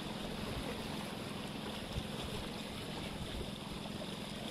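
Steady outdoor wind and background noise with a faint low hum underneath, and one small click about two seconds in.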